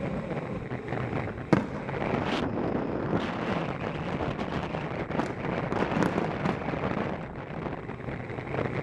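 Fireworks display going off: a series of sharp bangs, the loudest about a second and a half in, over a steady rush of wind noise on the microphone.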